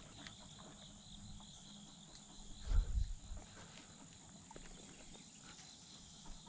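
A steady, faint chorus of field insects chirping high. About three seconds in there is a brief low thump and rumble.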